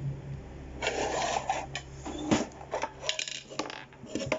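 Small plastic toy parts being handled: rustling and scraping, then a run of sharp clicks and knocks as the pieces are fiddled with and knocked together.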